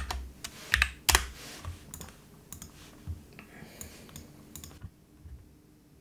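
Typing on a computer keyboard: scattered key clicks, with two louder key strikes about a second in and lighter ones after, stopping about five seconds in.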